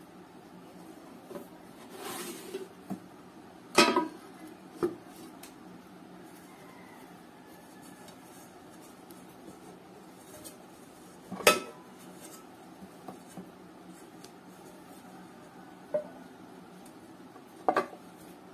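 Aluminium non-stick pans being handled, with a few separate metal clanks and knocks that ring briefly, the loudest about four seconds in and about eleven seconds in. Near the end, one pan clanks as it is set onto the stack.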